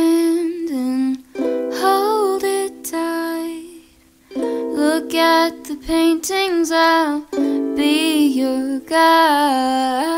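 Background music: a gentle ukulele-led song with a voice singing the melody in phrases.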